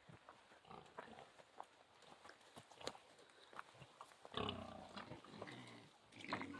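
Pigs grunting, with a longer pitched grunt about four seconds in and a shorter one near the end, among faint scattered clicks and rustles.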